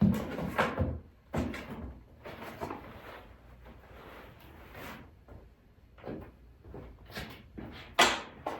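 Packaging and accessories being handled during an unboxing: irregular knocks, bumps and rustling, with the sharpest knocks right at the start and near the end.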